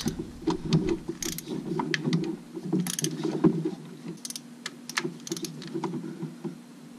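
Hand ratchet with an extension clicking in quick, irregular runs as the bolts of a vacuum-pump block-off plate are tightened down.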